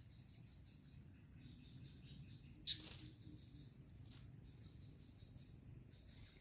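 Steady high-pitched chorus of insects, faint, with a sharp click about two and a half seconds in and a fainter click about four seconds in.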